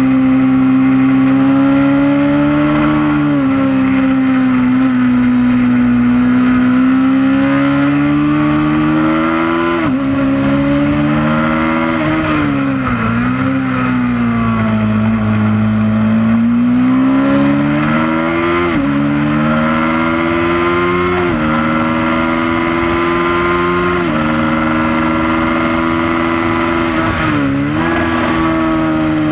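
Honda CB500 motorcycle engine at racing speed on track: the revs climb and drop sharply at each gear change several times, with a stretch of lower revs partway through, over wind and road noise at a mudguard-mounted camera.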